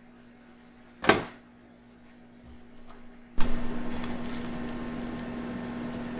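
A metal baking tray set down with one sharp knock about a second in. Then a steady hiss with a few light clicks of metal tongs as baked bread batons are lifted off the tray.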